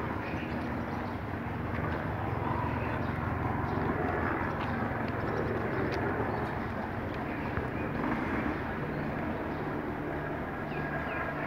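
Steady low rumble with a faint hum, like distant engine noise, under faint quick footfalls on asphalt and a few small bird chirps near the end.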